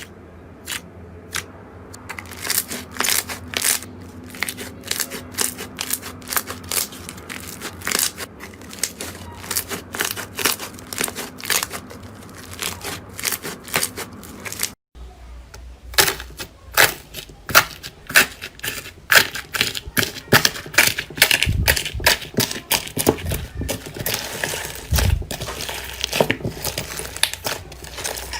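Slime being squeezed and kneaded by hand, with a dense run of sharp pops and crackles as air pockets burst. About halfway through the sound cuts to another batch, with louder, more widely spaced pops.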